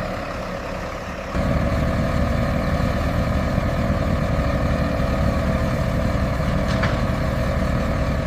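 A crane's heavy diesel engine running steadily, growing louder and fuller about a second and a half in.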